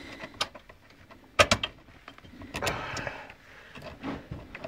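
Hand tools clicking and knocking on metal as a socket wrench with an extension is worked onto the bolts of an ATV winch, with one sharp knock about a second and a half in and a short rasping, ratchet-like stretch near the middle.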